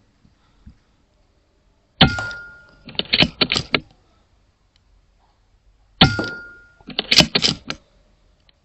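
Two shots from an Airmaks Krait L .22 air rifle, about four seconds apart. Each is a sharp crack with a short metallic ring, and is followed about a second later by a quick run of clicks as the action is worked to load the next pellet.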